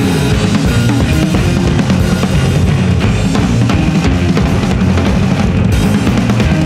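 Rock band playing: a drum kit with kick and snare to the fore over electric bass and guitar.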